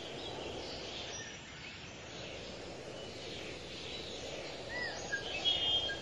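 Steady outdoor background noise with scattered small bird chirps, and a few short bird calls close together near the end.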